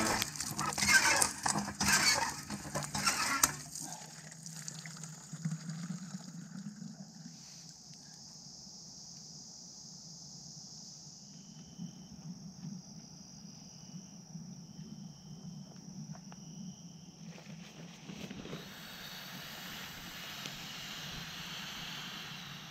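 Splashing of bare feet wading through shallow lake water, loud and irregular for the first few seconds. Then faint, steady outdoor ambience with a high hiss.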